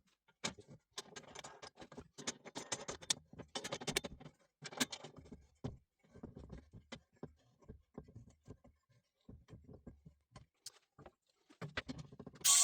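Irregular taps, clicks and short scrapes of small objects being handled and moved around on a workbench, with no machine running. Loud music starts right at the very end.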